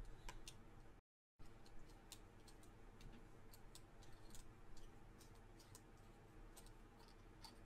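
Near silence with faint, scattered small clicks from handling a small clear plastic drill-bit case and a pin vise. The sound cuts out completely for a moment about a second in.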